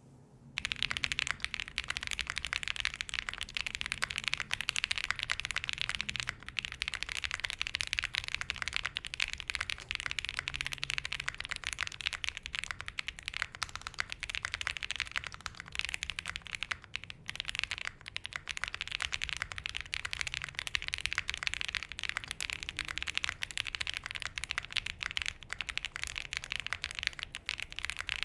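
Space65 R3 mechanical keyboard with Keyfirst Bling switches on a POM plate, foamed at plate and case, being typed on quickly and continuously. Dense key clacks start about half a second in, with a few short pauses.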